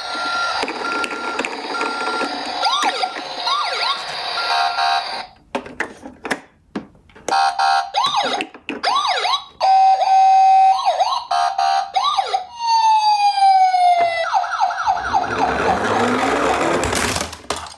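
Electronic toy ambulance sirens sounding one after another: a two-tone hi-lo, short repeated wails, a long falling tone, then a fast yelp that cuts off near the end, with short clicks between them.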